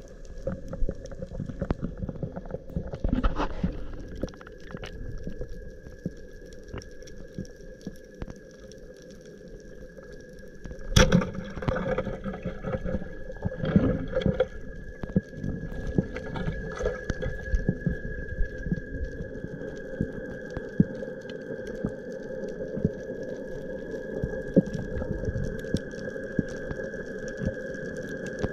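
Underwater sound: a dense, continuous crackle of small clicks with a steady high hum beneath it, and one sharp knock about eleven seconds in.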